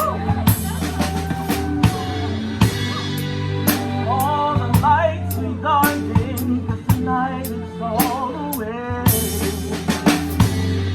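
A live band playing a 1970s pop-rock song. The drum kit is up front, with kick drum, snare and cymbal crashes, over a steady bass line and a sung melody.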